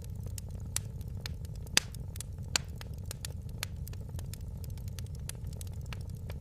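Fire in a fireplace crackling: irregular sharp pops and snaps over a steady low rumble, with the loudest snap nearly two seconds in.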